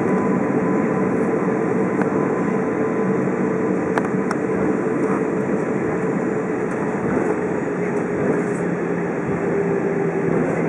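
Cabin noise inside an Airbus A320 on its departure: the jet engines running at takeoff thrust as a steady, loud rush with a faint low hum. There is a sharp click about four seconds in.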